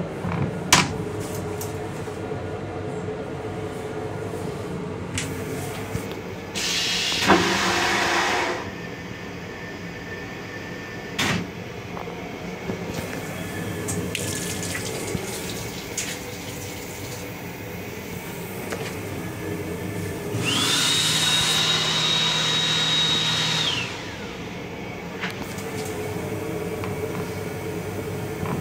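Train restroom fixtures in use over the steady hum of the railcar: clicks and knocks of the plastic toilet seat and lid, a short rush of water about seven seconds in, and about twenty seconds in a louder three-second rush with a high motor whine that rises as it starts and drops away as it stops.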